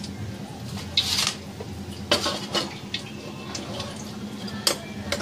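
A metal utensil clinking and knocking against a steel kadhai holding heating oil: a handful of sharp clinks, about one second in, twice a little after two seconds, and twice near the end, over a steady low hum.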